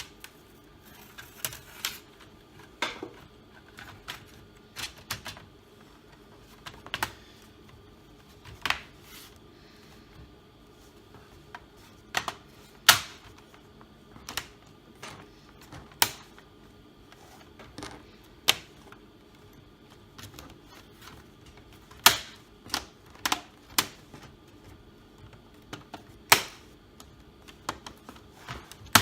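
Irregular sharp plastic clicks and snaps, with a few louder ones, as the plastic bottom cover of a Dell Inspiron 3576 laptop is pressed back on and its clips catch.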